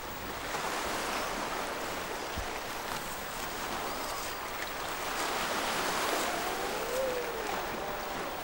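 Small waves washing steadily onto a sandy beach. A few faint, wavering calls sound over the surf in the second half.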